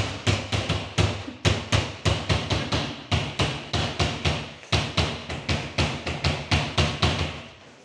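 Fast, steady drumbeat of deep drum strokes, about five a second, fading out near the end.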